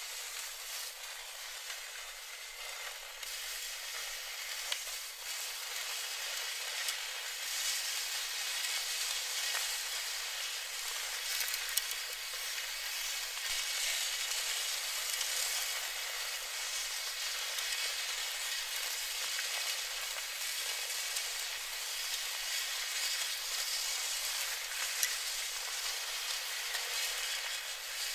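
Dozens of small DC motors, each spinning a thin wire that scrapes and taps against a leaning wooden slat, together making a dense, steady crackling rustle with no deep tones. It swells slightly over the first few seconds.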